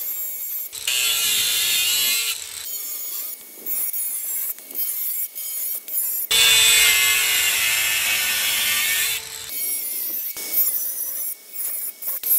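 DeWALT DCG413 20V cordless brushless flathead angle grinder cutting through a steel pipe with a cut-off wheel. Two long, loud cutting passes, one about a second in and one from about six to nine seconds in, are separated by shorter, quieter touches of the wheel on the metal.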